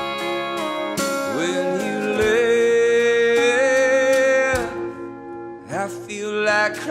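Live country-folk band music: a pedal steel guitar slides up and down between long held notes over acoustic guitar and drums.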